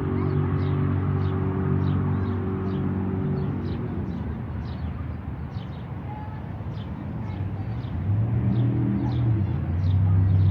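Jet boat engine drone, dying away over the first few seconds and then building again toward the end as a boat comes back up the river. Short high chirps repeat throughout.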